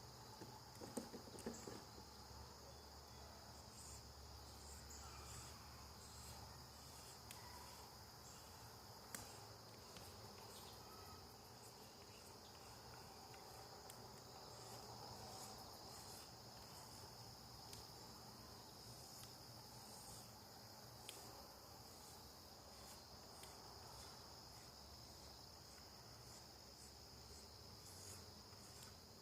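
Crickets chirping in a steady high trill, with scattered faint clicks, the loudest shortly after the start.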